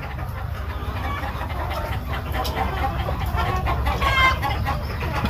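A large flock of chickens clucking all together, many short overlapping calls, with one louder drawn-out call just after four seconds in.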